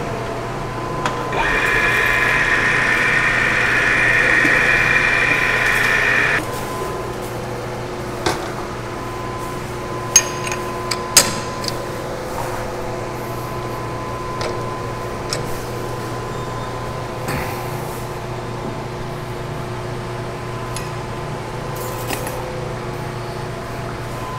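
Metal lathe cutting the final 20-degree chamfer on a 1045 steel shaft: the tool gives a steady high hiss that stops abruptly about six seconds in. A steady hum goes on, with a few sharp metallic knocks from the chuck key as the three-jaw chuck is loosened to free the part.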